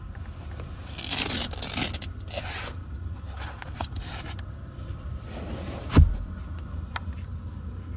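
Cloth car-seat upholstery and rear armrest handled by hand: two short spells of scraping and rubbing, then a single dull thump about six seconds in, over a steady low hum.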